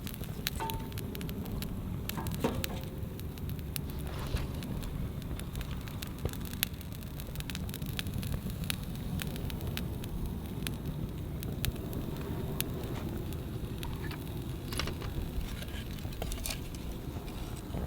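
Wood campfire burning in a fire pit, crackling and popping in sharp, irregular snaps over a steady low rush.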